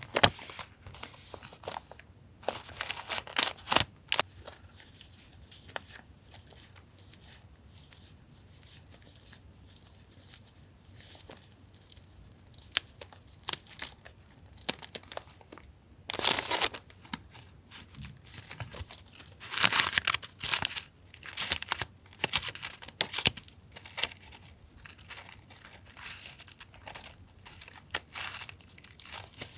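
Paper being handled close up: sticker sheets and background papers rustling and crinkling in irregular bursts, with sharper tearing-like sounds. The bursts come in clusters with a quieter stretch in the middle.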